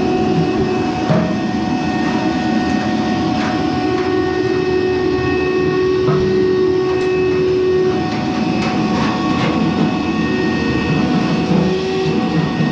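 Frigidaire electric clothes dryer running, its drum turning with a steady rumble and a sustained whine, with scattered light clicks and knocks.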